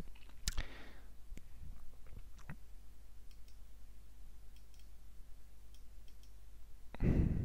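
A handful of faint computer mouse clicks, spaced out, over a low steady hum.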